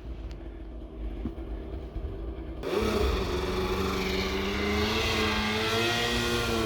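Snowmobile engine: a low, muffled rumble at first, then about two and a half seconds in it comes up to a steady high-rev note that wavers slightly in pitch.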